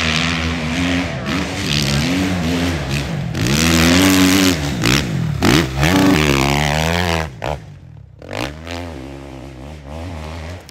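450cc-class dirt bike engine revving hard on a hillclimb run, its pitch rising and falling again and again with throttle and gear changes. The engine noise drops away about seven seconds in, with one short rev after.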